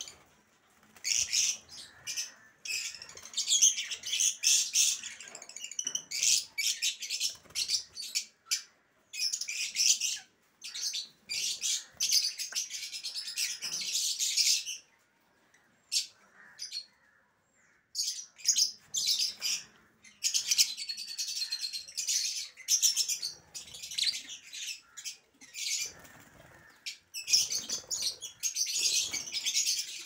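Caged African lovebirds chirping in rapid, high-pitched bursts, with brief lulls about fifteen and seventeen seconds in.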